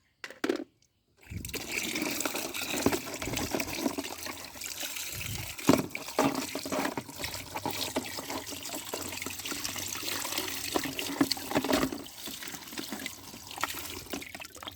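Water running and splashing as mud is washed off plastic toy guns, starting about a second in, with a sharp knock about six seconds in.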